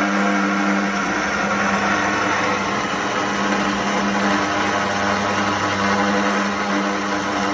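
A motor-driven machine running steadily at constant speed, with an even hum over a hiss.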